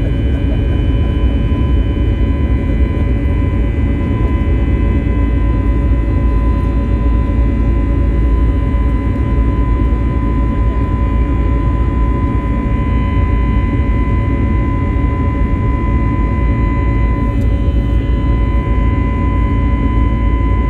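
Airliner cabin noise during the climb after takeoff: the jet engines' steady deep rumble with several steady whining tones over it, heard from inside the cabin.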